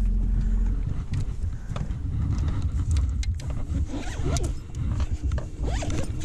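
A zipper being pulled in short runs, among rustling and bumps from the body-worn camera being moved about.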